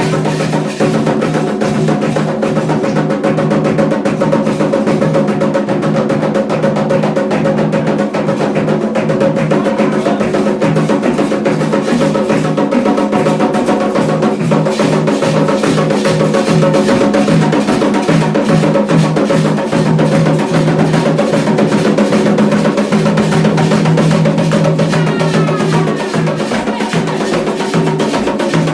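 Candomblé ritual drumming on atabaque hand drums: a fast, steady percussion rhythm with dense strokes.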